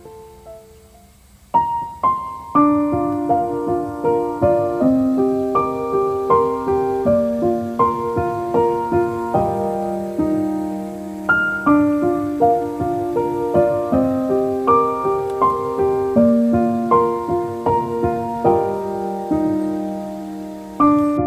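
Background piano music: a quiet pause at the start, then a gentle piano piece of steady single notes and chords begins about a second and a half in.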